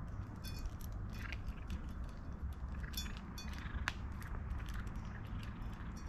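A cat eating, with a run of small crunching clicks and a few brief ringing clinks against its dish.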